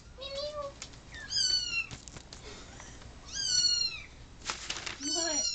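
Young kittens mewing: several high-pitched mews, each falling in pitch, with a shorter, lower mew near the start.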